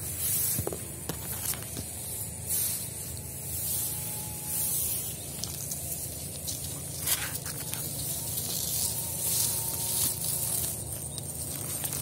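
Grass and reeds rustling: irregular short bursts of hiss every second or two over a steady low rumble.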